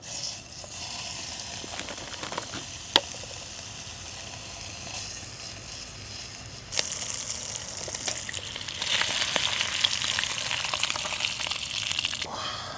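Meat frying in a hot, oily pan: a steady high sizzle with a sharp clink about three seconds in. The sizzle steps up suddenly about seven seconds in, swells again near nine seconds, and falls away near the end.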